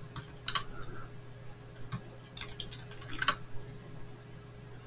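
Computer keyboard keys clicking in a few scattered keystrokes, over a faint steady low hum.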